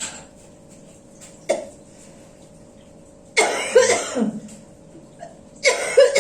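A person coughing: two harsh coughing bouts of about a second each, the first a little past halfway and the second near the end, with a short click before them.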